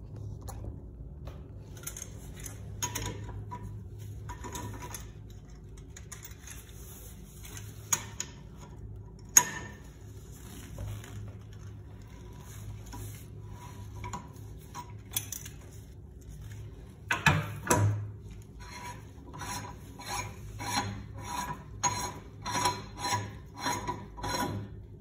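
Pliers wrench clicking and scraping on the chrome top cover of a Sloan flushometer valve as it is loosened, with a couple of sharp metal clicks. In the last few seconds the loosened cover is unscrewed by hand, its threads rasping in short strokes about two a second, over a steady low hum.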